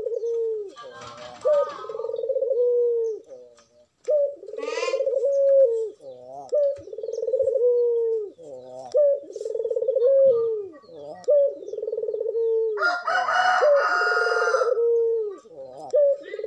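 Puter dove (domestic ringneck dove) cooing over and over, bowing as it calls: a run of low coos, each a short rising note then a longer rolling one. A louder, harsher call sounds over it at about 13 seconds in.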